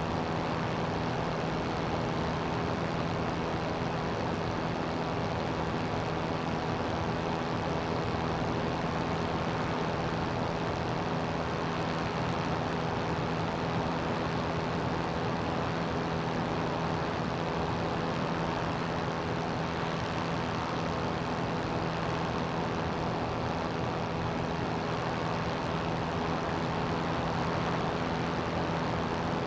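CGS Hawk ultralight's engine and propeller running steadily in flight, a constant drone with a rush of wind over it.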